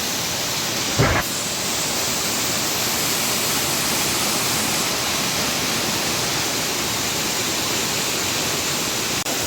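Waterfall rushing: a steady, even wash of falling water. A brief low thump about a second in.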